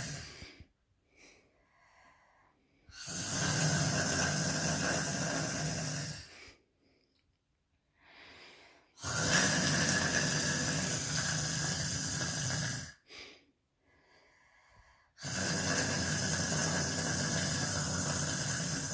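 A young woman snoring: long noisy breaths of about three to four seconds each, coming about every six seconds, with faint breathing in the pauses between them.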